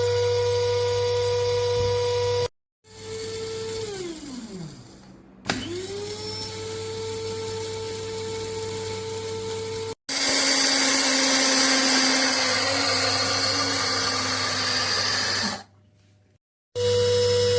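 Small electric blade coffee grinder motor running with a steady high whine, in several short clips broken by brief silent gaps. About four seconds in it is switched off and spins down with falling pitch, then starts and spins back up; in the second half a rougher, noisier stretch of running.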